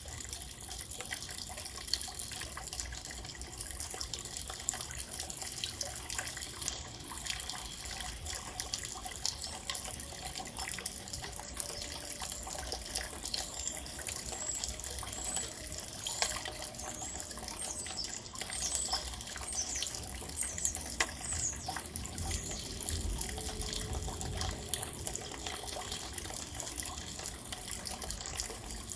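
Steady rain falling, an even wash of noise with the patter of many small drops. A few faint high chirps come through about halfway in.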